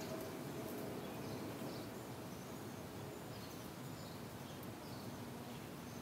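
Outdoor ambience: a steady low background rumble, with faint, short, high bird chirps repeating about once a second, often in pairs.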